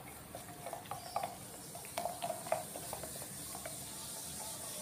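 Wooden stirring stick stirring a gold solution in a glass beaker, tapping and clicking against the glass in quick irregular strokes that thin out after about three seconds. The solution is being stirred as urea is mixed in to dilute it.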